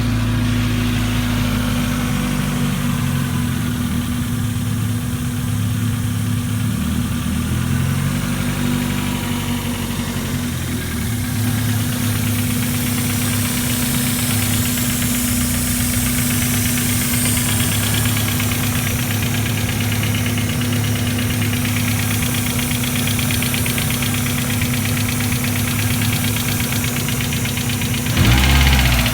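Mazda Miata inline-four engine idling roughly on its first start after new fuel injectors: it is misfiring, which the owner says drops it to two cylinders as it warms, and it has a leak he can hear but not place. Near the end it briefly gets louder and rises in pitch.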